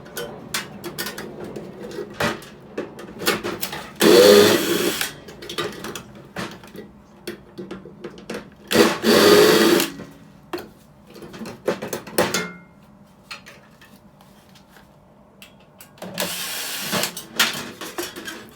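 Power drill-driver whirring in three short runs of about a second each, backing out the screws that hold a microwave's magnetron, with clicks and clatter of small metal parts in between.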